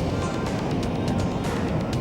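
Background music mixed with the steady running noise of a train on its tracks, with irregular short clicks.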